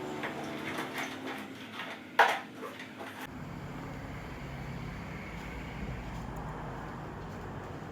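A steady appliance hum, then a sharp clack about two seconds in followed by a few lighter knocks, as of something being set down or a door shutting. After that comes a low, steady rumble of room noise.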